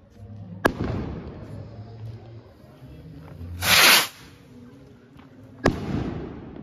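Stick skyrocket fireworks: a sharp bang about half a second in, then the rocket taking off with a loud hiss lasting about half a second, and a second sharp bang near the end as it bursts overhead, each bang trailing off briefly.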